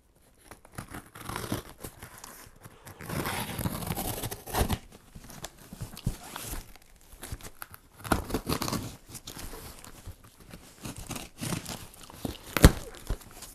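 Packing tape on a cardboard box being slit with a knife and then peeled and torn off, in irregular rasping strips with crinkling of plastic and cardboard. A single sharp knock just before the end is the loudest sound.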